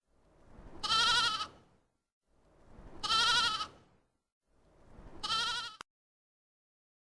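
Three quavering animal bleats, about two seconds apart, with silence between them; the last bleat is shorter and quieter.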